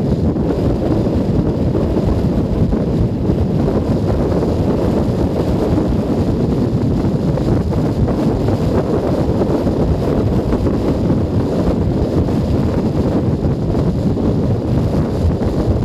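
Steady wind buffeting a helmet-mounted microphone while riding a Junak M12 Vintage 125 cc motorcycle at road speed, with the engine running under the low rumble.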